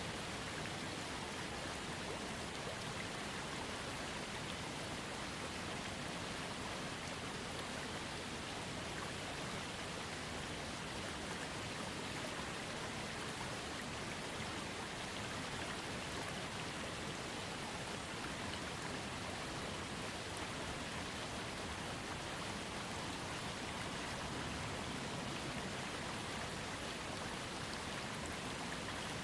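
Small waterfall fed by a trickling creek: water falling and splashing in a steady, even rush.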